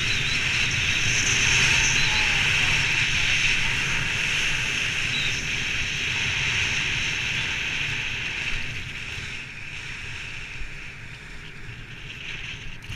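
Wind rushing over a head-mounted action camera's microphone, mixed with skis hissing and scraping on groomed snow during a downhill run. The noise eases over the last few seconds as the skier slows on the flatter run-out.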